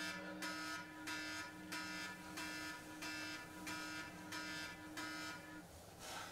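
Mobile phone alarm ringing: a repeating electronic beep pattern of about one and a half pulses a second, which stops about six seconds in.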